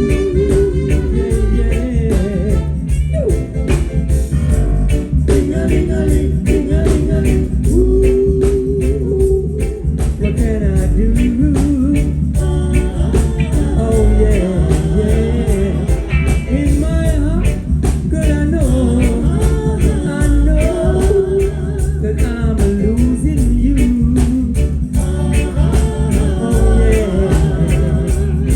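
Live reggae band playing: a melody line over a heavy bass and a steady drum beat.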